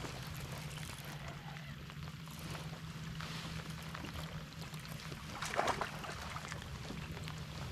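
Kayak running under its Torqeedo electric outboard: a steady low motor hum under the hiss of water and rain, with a brief louder clatter about five and a half seconds in.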